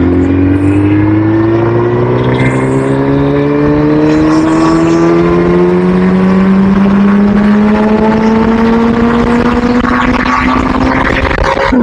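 Motor vehicle engine pulling under steady acceleration, its pitch climbing slowly and evenly throughout. The pitch drops sharply at the very end.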